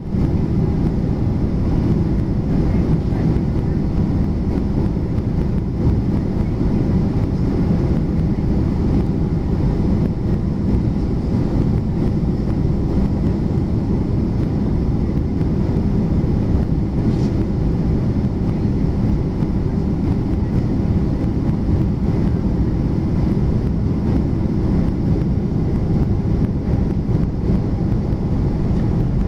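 Steady low rumble of a Boeing 737-400's jet engines idling, heard from inside the cabin while the airliner waits to depart.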